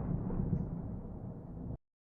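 Thunder rumbling and fading away, cut off abruptly just before the end.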